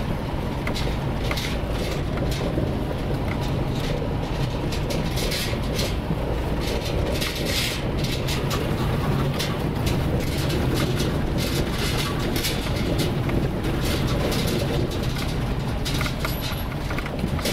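Moving car heard from inside the cabin: steady engine and road rumble with frequent rattling clicks.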